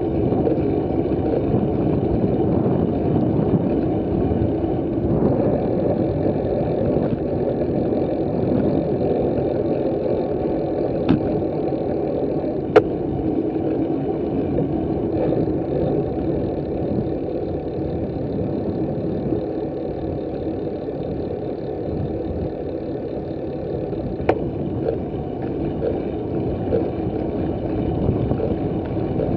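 Steady rumbling wind noise on the microphone of a bicycle-mounted camera, with tyre and road noise, while riding at about 20 km/h. A few sharp clicks cut through it, about halfway through and again near the end.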